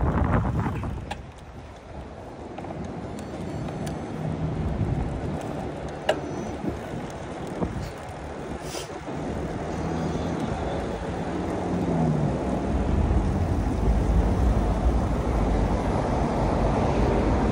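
City road traffic heard from a moving bicycle: passing cars and wind rushing on the microphone. A steady engine hum runs through the middle and dips in pitch about twelve seconds in, and the wind rush grows louder near the end.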